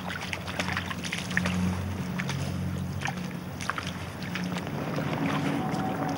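Boots sloshing and splashing through shallow water and wet mud in irregular steps, over a low steady hum.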